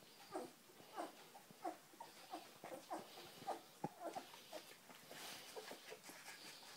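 Two-week-old German Shorthaired Pointer puppies squeaking and whimpering as they nurse at the dam, short faint squeaks about twice a second, with a few soft sucking clicks.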